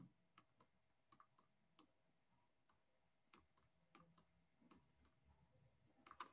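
Near silence, broken by faint, scattered ticks at irregular intervals, a few close together near the end.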